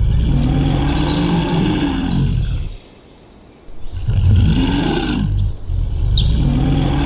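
A bear growling in three long, low, rough growls, with a short pause before the second. Birds chirp high above them.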